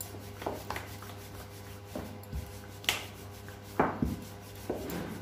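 Wooden rolling pin rolling out dough on a stone counter: repeated rubbing strokes with a few sharper knocks, the loudest about three and four seconds in.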